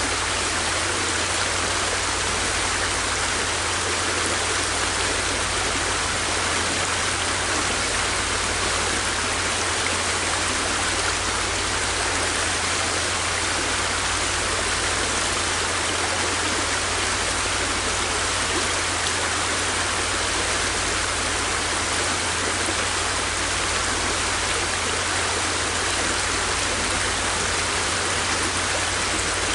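River water flowing: a steady, unbroken rushing hiss with a low rumble underneath.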